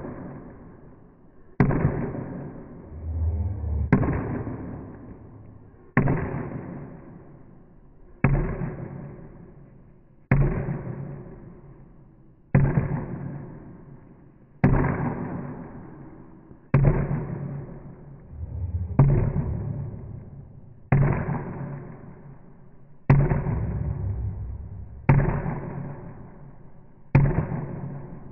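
A sudden hit that fades away over about two seconds, repeated evenly about every two seconds, like a slow dramatic soundtrack beat laid over the picture.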